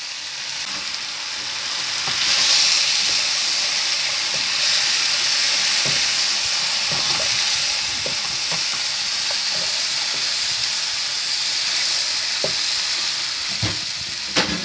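Whole quail frying with onions, tomato and spices in a non-stick pan, sizzling steadily and louder from about two seconds in, while a slotted wooden spatula stirs the pan with small knocks and scrapes now and then.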